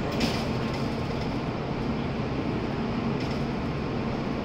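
Steady hum of a stationary N700S Shinkansen train standing at the platform, with two short hisses, one just as it starts and one about three seconds in.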